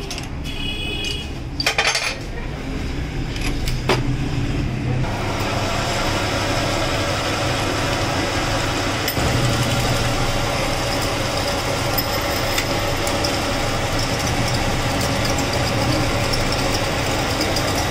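A few metal clinks and knocks as a shock absorber rod is clamped in a lathe's three-jaw chuck. About five seconds in, the metal lathe starts and runs steadily, spinning the rod with an even hum and whine.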